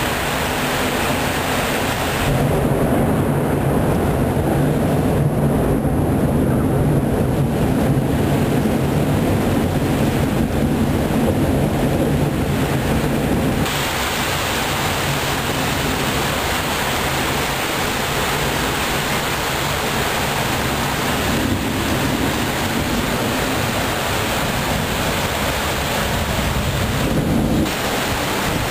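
Thunderstorm: steady rain with deep rolling thunder, the low rumble heaviest in the first half and the rain hiss brighter from about fourteen seconds in.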